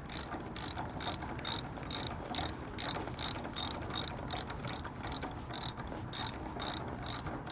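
Socket ratchet clicking in short bursts, about three strokes a second, as it tightens the nut on a bow roller's through-bolt.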